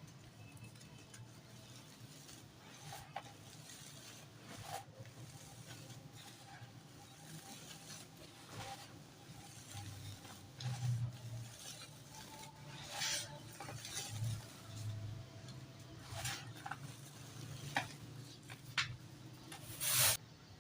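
Dry dirt being crumbled: irregular gritty crunches and crackles that grow louder and more frequent in the second half, with one sharp crack near the end.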